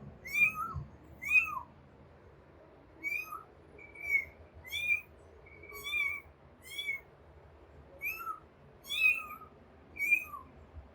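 Kitten meowing repeatedly for its mother: about a dozen short, high-pitched cries, roughly one a second.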